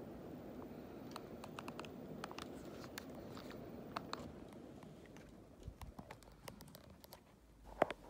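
Home Decorators Collection Kensgrove 54-inch ceiling fan running with a steady whoosh of moving air that fades away over the last few seconds as the fan slows down. Scattered light clicks and ticks sound throughout.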